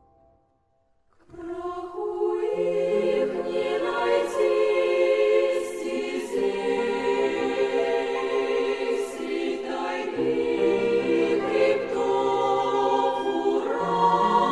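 A choir singing slow, held chords, coming in about a second in.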